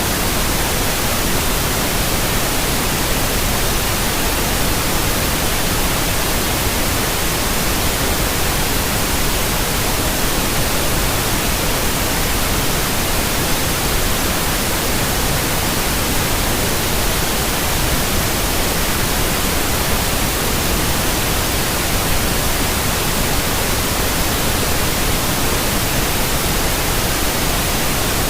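Steady white noise: an even, unchanging hiss spread across all pitches, with no rhythm or breaks.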